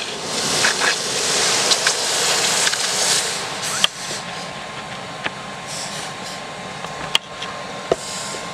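Forge air blower running steadily, with a loud rushing hiss for the first three seconds or so and a few sharp clicks.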